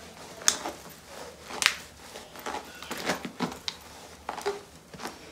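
Scattered soft rustles and a few sharp light clicks from long synthetic wig hair being handled and pulled through by hand.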